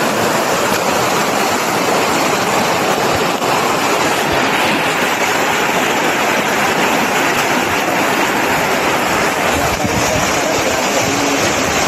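Swift river water rushing over rocks, a steady, loud, unbroken noise.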